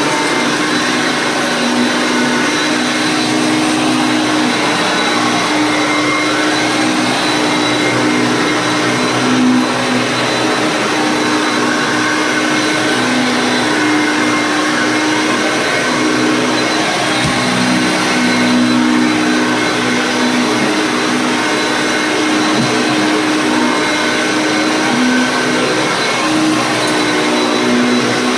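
Vintage Hoover Concept One self-propelled upright vacuum running on carpet: a steady motor and airflow rush, its hum stepping up and down between two close pitches every second or two.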